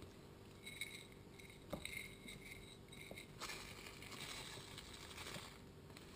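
Faint rustling of a plastic bag and a few light ticks as coarse fleur de sel is sprinkled over a raw cod fillet in a glass bowl.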